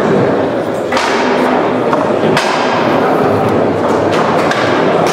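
Foosball game in play on a Leonhart table: a few sharp knocks of the ball and rods, over a steady background of hall noise.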